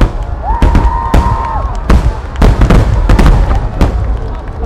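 Aerial firework shells bursting in a rapid barrage: sharp loud bangs every half second or so over a continuous low rumble of booms and echoes.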